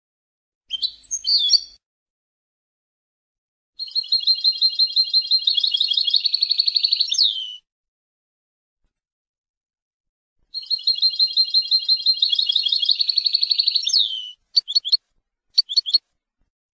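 European goldfinch singing: two long, rapid twittering trills of about four seconds each, each ending in a falling slur, with a short call before them and a few brief notes near the end.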